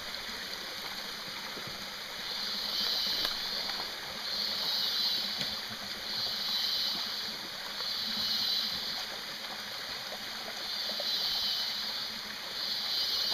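Small waterfall trickling over rock into a shallow pool: a steady rush of running water. Over it, a high buzzing swells and fades about every two seconds.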